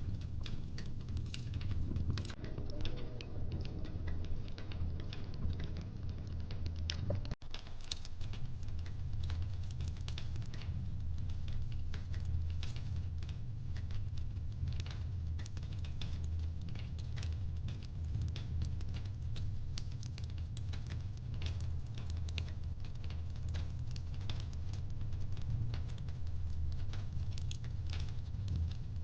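Wood fire crackling steadily, dense small pops and snaps over a low rumble. The sound drops out for an instant about seven seconds in.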